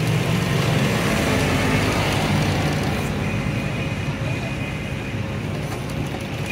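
Old belt-driven sewing machine running steadily, a continuous mechanical hum, as it stitches a motorcycle seat-cover panel.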